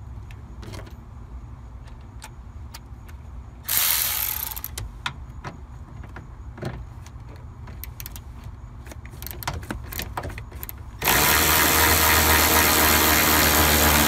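Milwaukee cordless ratchet running as it undoes the seatbelt retractor's mounting bolt. A short burst about four seconds in is followed by a few clicks, then a long steady run starting about eleven seconds in.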